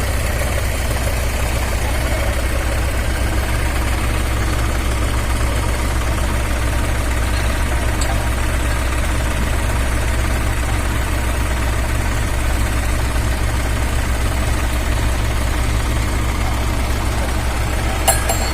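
A diesel engine of the stuck road roller or the tractor pulling it idling steadily, with a brief sharp click near the end.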